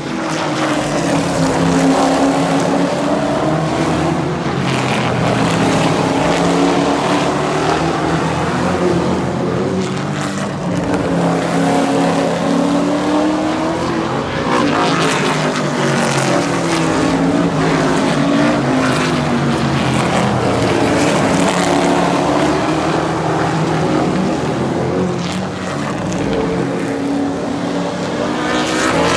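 Super truck race engines passing at speed around a short oval, one after another, each swelling and changing pitch as it goes by.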